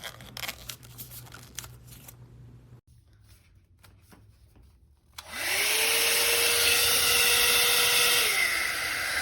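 Faint handling clicks, then about five seconds in a 7MAGIC foldable ionic hair dryer is switched on: its motor whine rises quickly to a steady pitch under a loud rush of blowing air. Near the end the motor pitch drops a little while the air keeps blowing.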